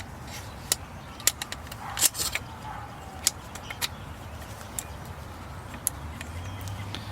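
Scattered sharp clicks and light knocks of airsoft rifle parts being handled as a replacement inner barrel is pushed into a VFC MK18, a dozen or so at irregular intervals, the loudest cluster about two seconds in.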